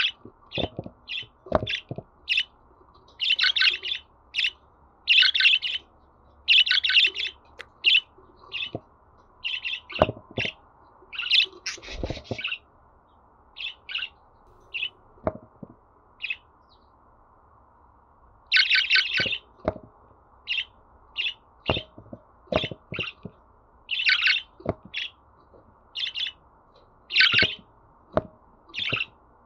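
Budgerigar chirping and warbling in bursts of short, high chirps with brief pauses between them.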